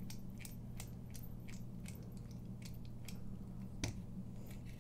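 Faint small clicks and ticks of a bit screwdriver turning out a small screw from a folding knife's handle, with one sharper click near the end.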